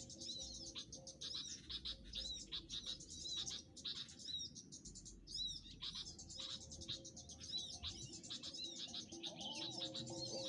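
Many small birds chirping and trilling rapidly at a high pitch in a dense, continuous chatter, with a brief lull about four seconds in. A faint steady low tone runs underneath.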